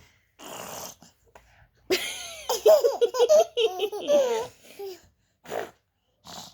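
A one-year-old baby laughing: a breathy intake first, then a run of high-pitched laughs in the middle, then a couple of short breathy gasps near the end.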